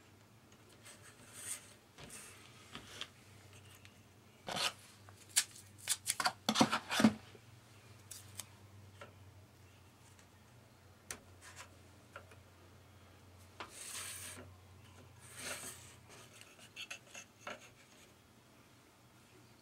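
Hands sliding and handling thin craft strips on a cutting mat: scattered short scrapes, rubs and sharp clicks, loudest in a quick cluster of clicks about five to seven seconds in, with two longer scrapes later. A faint low hum runs underneath.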